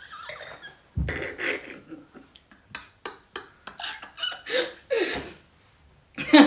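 A woman laughing hard in uneven bursts with breathy gasps between them, starting with a sudden loud burst about a second in, then trailing off into a near-quiet pause near the end.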